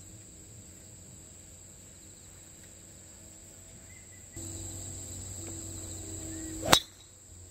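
A golf driver striking a ball off the tee: one sharp crack near the end, a well-struck drive that goes a long way.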